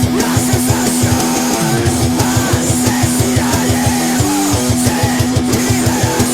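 Heavy rock band music: electric guitar and bass holding low notes over fast, even drumming.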